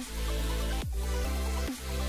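Electronic music: a sustained bass and steady notes, with a deep falling sweep about every second.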